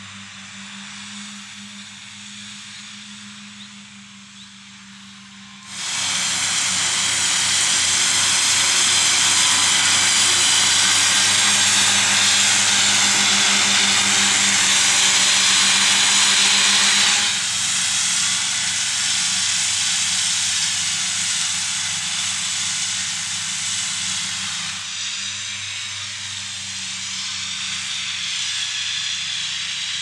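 Fendt 826 Vario tractor's six-cylinder diesel running steadily under load while its Kuhn FC 9530D triple disc mower cuts grass with a strong hiss from the spinning mower discs. The sound jumps suddenly loud about six seconds in as the rig passes close, stays loud until about seventeen seconds in, then falls away as it moves off.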